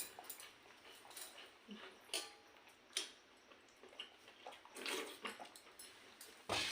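Eating sounds from a meal of pakhala, rice soaked in water: soft wet squishes and scattered small clicks, louder near the end.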